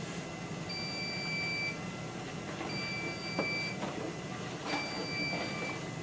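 Basement Watchdog battery-backup sump pump alarm beeping, one high beep about a second long every two seconds; the alarm is set off by the backup pump's float switch being tripped. A few light knocks and rustles from hands working in the sump pit, over a low hum.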